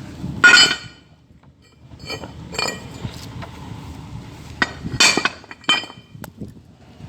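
Steel parts clinking and knocking against each other with a bright metallic ring: about seven separate hits, the loudest about half a second in and about five seconds in.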